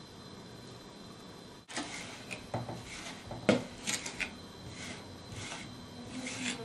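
A small trowel scraping and tapping as it spreads wet cement over a mirror's glass: a run of irregular scrapes and clicks, the loudest about three and a half seconds in. For the first second and a half there is only a faint steady hiss.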